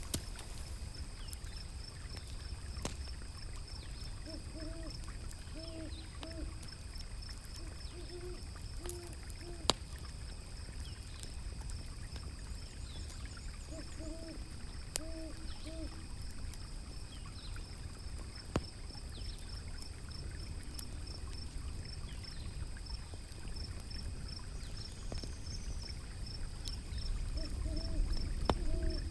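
An owl hooting in short series of three or four hoots, several times, over a steady low rush of river water. A high, evenly pulsing insect chirr runs throughout, and a few single sharp crackles from a wood fire stand out.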